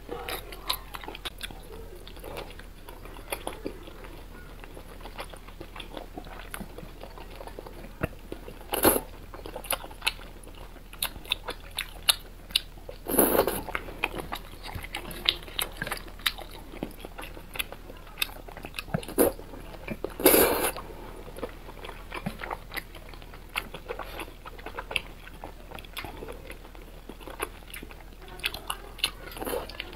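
Close-miked eating of thick, chewy noodle strips in chili oil: a steady run of wet chewing and mouth smacks, with a few louder, longer bursts about 9, 13 and 20 seconds in.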